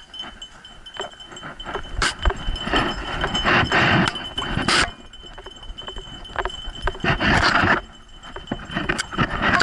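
A running dog's harness hardware and tags jingling and clinking, with bursts of scratchy rubbing and rustling at the camera mounted on its back, from about two to five seconds in and again around seven seconds.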